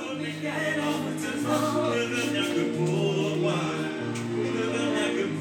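Music: a song with singing over a slow bass line that changes note about every second and a half.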